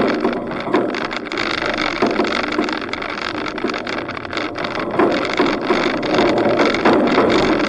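4WD driving along a dirt track, heard from a camera on its roof rack: wind buffeting the microphone over the vehicle's running noise, with occasional short knocks.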